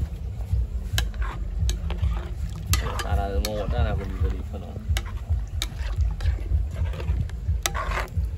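A metal ladle stirring a metal cooking pot, scraping and clinking against it about a dozen times, over a steady low rumble. A voice is heard briefly about three seconds in.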